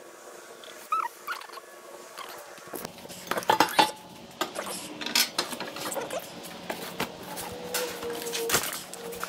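Small metal parts and tools clattering on a steel fixture table as they are handled, with packaging rustling. The clatter starts about three seconds in, after a quieter stretch, and a low steady hum sets in with it.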